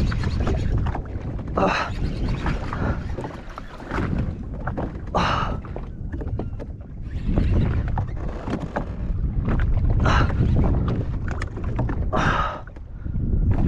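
Wind rumbling on the microphone and water washing against the hull of a small personal watercraft at sea, with about four short, louder splashes.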